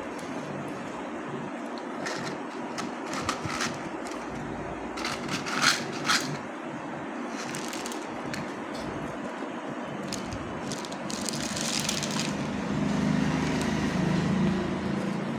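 Gravel and sand crunching and scraping under toy construction vehicles, with scattered clicks and two sharper knocks about five and six seconds in. A low hum swells near the end.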